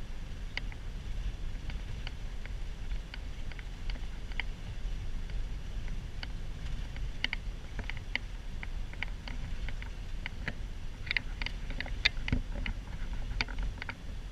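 Steady low road and engine rumble heard inside a van's cabin while driving, with scattered light ticks and clicks throughout that come thickest about two-thirds of the way through.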